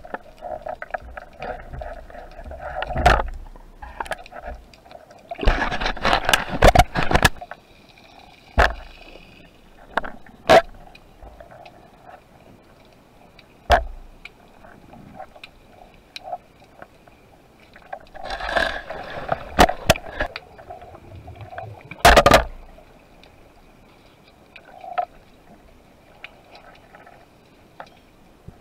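Underwater sound picked up through a camera housing during a spearfishing dive: scattered sharp clicks and knocks, with a few short bursts of rustling and scraping from gear handling, over a faint steady hum.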